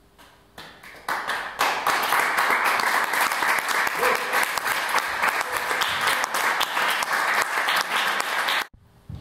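Audience applauding, building up about a second in, then cut off suddenly near the end.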